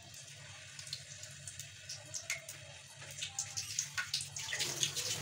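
Sliced onions sizzling in hot oil in a deep pot, the first stage of frying them brown. A soft hiss at first, then the crackle and popping grow busier from about three seconds in.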